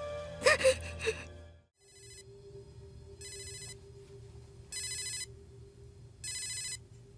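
Mobile phone ringing with an incoming call: a short electronic ring repeated four times, about every second and a half, over a faint steady low drone.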